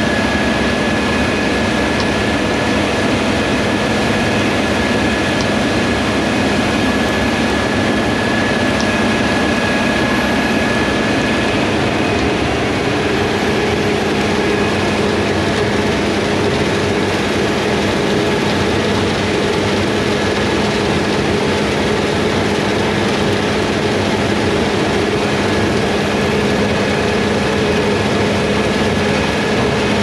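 Fendt Ideal 9T combine harvesting soybeans, its engine and threshing machinery running steadily under load with a constant hum and whine; the whine's pitch shifts a little about twelve seconds in.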